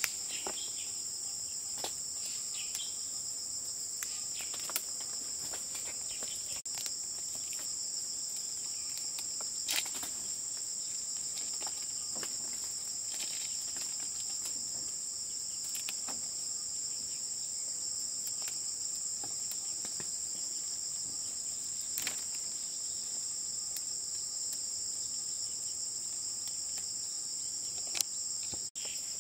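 Steady, high-pitched insect chorus, with a few short clicks and snaps scattered through it.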